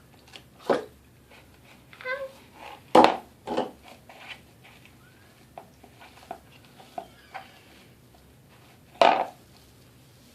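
Slime being kneaded and squished by hand while the activator is mixed in: scattered short, wet squelches, the loudest about three seconds in and again near the end.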